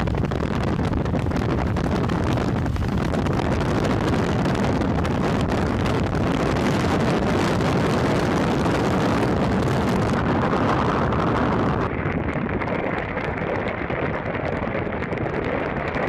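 Loud, steady wind noise buffeting the microphone in a snowstorm. It turns duller about twelve seconds in.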